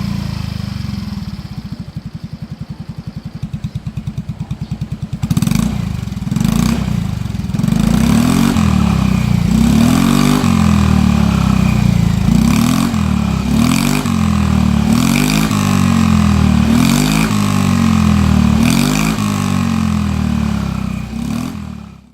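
Yamaha Axis Z scooter's 125 cc single-cylinder four-stroke engine, breathing through an aftermarket OUTEX muffler, idling for about five seconds and then blipped repeatedly: the engine speed rises and falls about every second or two. The sound cuts off abruptly at the end.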